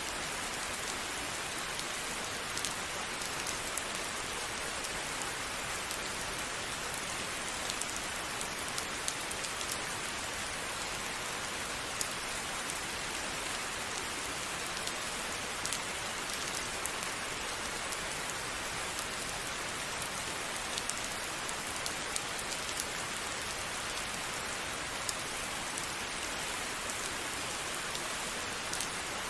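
Steady rain falling, an even hiss with scattered close drop ticks.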